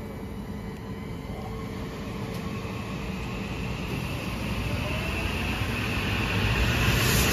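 A Kawasaki M8 electric multiple unit train approaching along the track. Its low rumble grows steadily louder as it nears, and a faint high whine comes in partway through.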